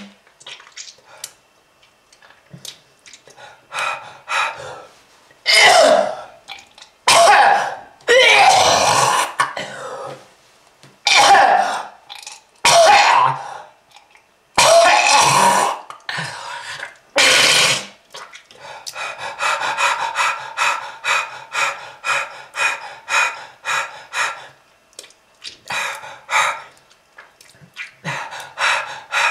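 A person coughing in repeated loud fits with throat clearing, then a long run of short rapid coughs, about three a second, in the second half. The coughing of a smoker with lung disease.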